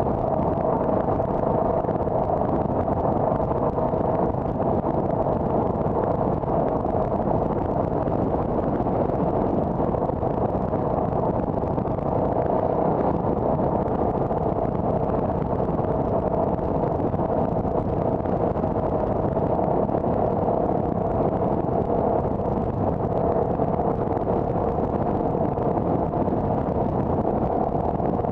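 Car driving at a steady pace: constant road and engine noise with a steady hum and no changes.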